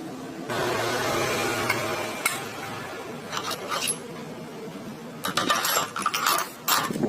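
Small metal parts being handled: a stretch of scraping, then a series of irregular clinks and rattles.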